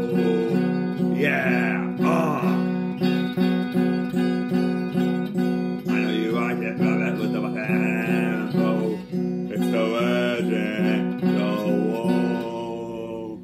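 Electric guitar strummed in a steady rhythm, about two strums a second, with a man singing over it in stretches. The strumming stops near the end and the last chord rings out.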